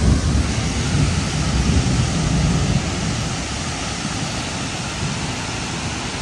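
Flooded river in spate, its muddy water rushing and churning over rocks in a steady loud noise. Low rumbling wind on the microphone is strongest in the first half and eases off about halfway through.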